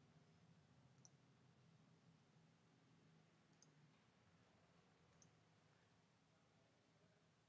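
Near silence over a faint low hum, with three faint clicks of a computer mouse about one, three and a half and five seconds in.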